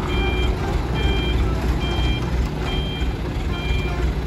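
Truck reversing alarm beeping steadily, about one short high beep a second, over a low engine rumble.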